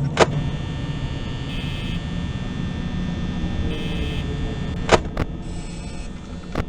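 A person hiccuping: two sharp hiccups about five seconds apart and a fainter one near the end, over a steady low hum.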